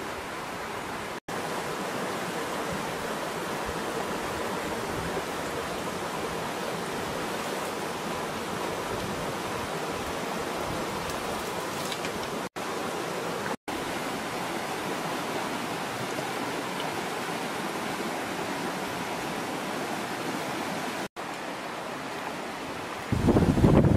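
Steady rush of a flowing stream, an even noise that drops out for an instant a few times. Near the end, wind buffets the microphone, louder and lower.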